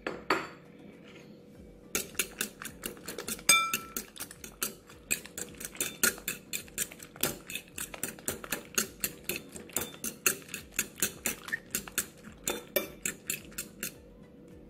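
A metal fork beating eggs in a ceramic bowl: rapid clinks of the fork against the bowl, several a second, starting about two seconds in and stopping near the end.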